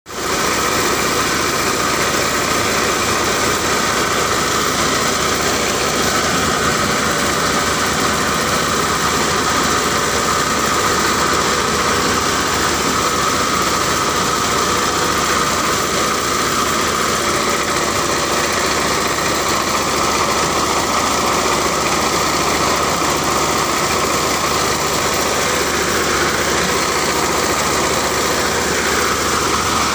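Diskmill 45 disk mill with steel-toothed blades running steadily under load as it grinds grain, together with the engine that drives it, a continuous even machine noise.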